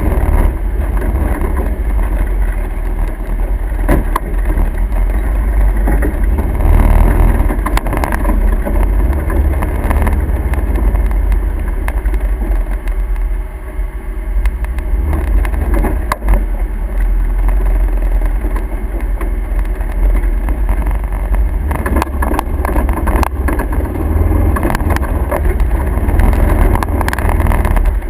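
Motor vehicle running, a loud steady low rumble with road and engine noise and a few short clicks.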